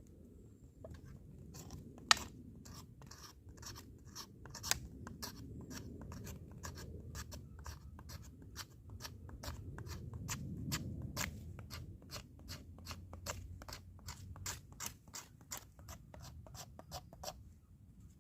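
Knife blade scraping a stick of fatwood (resinous pine) in quick repeated strokes, about three a second, raising shavings and fine dust for fire lighting. The scraping stops shortly before the end.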